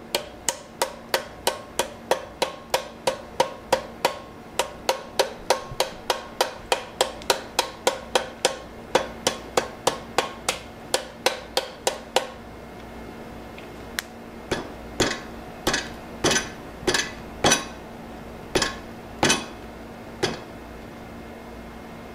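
A handmade blue-steel boning knife chopping into a knot in a wooden board: quick, regular knocks, about three a second, for some twelve seconds. After a short pause come about ten louder, more widely spaced chops, ending near the end. The chops test whether the knife's edge deflects or rolls on the hard knot.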